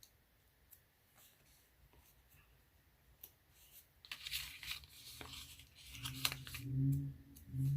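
Sticker being peeled off its backing sheet, with paper rustling and small clicks and a brief tearing rustle about four seconds in. Near the end comes a louder low-pitched hum lasting about a second and a half.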